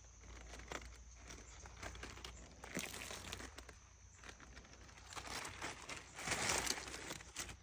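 Faint, irregular rustling and crinkling as a potted bromeliad and its stiff leaves are handled, with the loudest rustle a little after six seconds in.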